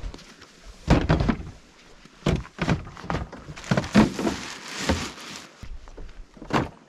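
A series of irregular knocks and thumps, about a dozen over several seconds, some with a short hollow ring.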